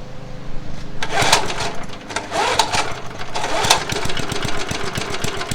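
Small single-cylinder engine of a pull-start John Deere lawn mower running, getting louder and rougher about a second in with uneven rises in pitch as the throttle is tried; the owner suspects the throttle cable.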